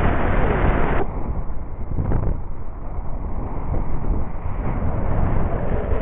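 Airflow buffeting the camera microphone of a paraglider in flight: a steady rumbling rush of wind noise, harsher and louder for about the first second, then duller.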